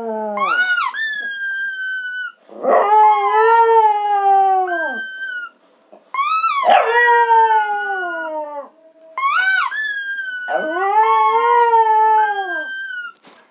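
Dog howling: four long howls in a row with brief breaks between them, each starting with a rising note and sliding down in pitch as it fades.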